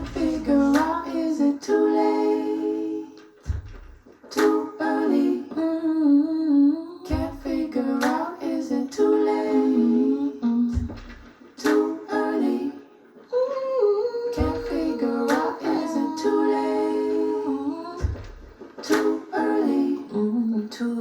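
Music: a song with a wordless sung or hummed vocal over plucked strings, with a deep bass note about every three and a half seconds.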